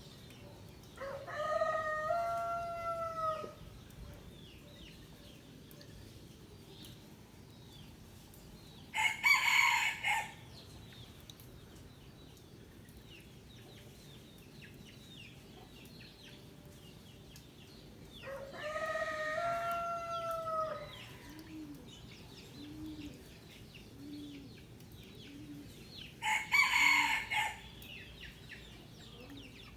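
Roosters crowing: two long crows about a second and about eighteen seconds in, and two shorter, harsher calls about nine and twenty-six seconds in. Soft low clucks come about once a second after the second long crow.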